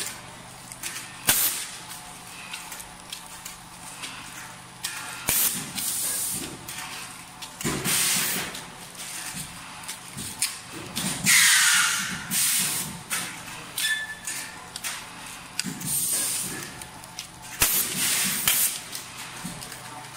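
Form-fill-seal packaging machine line running: short bursts of compressed-air hiss from its pneumatic valves and cylinders repeat irregularly every one to four seconds over a faint steady motor hum.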